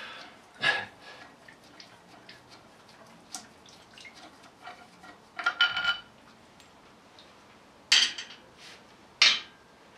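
Metal hand tools and parts clanking: a few sharp metallic clinks spread over several seconds, one of them ringing briefly near the middle, as bolts are worked off the engine.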